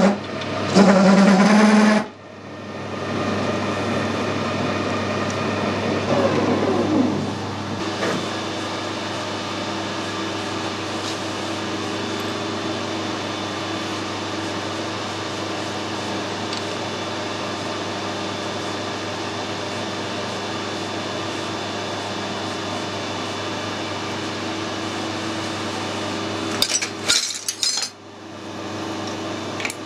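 Metal lathe turning a steel bar, then running again and winding down with a falling pitch about seven seconds in. A steady machine hum carries on after that, and near the end come a few sharp metal clanks as a threading die in its holder is fitted onto the bar.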